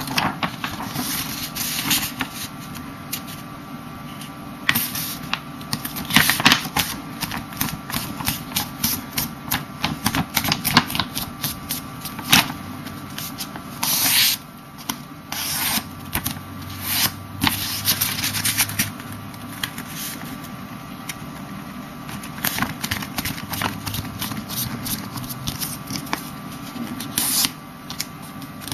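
A sheet of paper being folded and creased by hand: irregular rustling and sharp crinkles, over a steady low hum.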